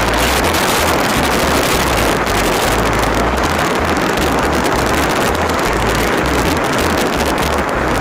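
Moving road vehicle heard from on board: loud, steady rushing of wind over the microphone with gusty low rumble, over engine and road noise.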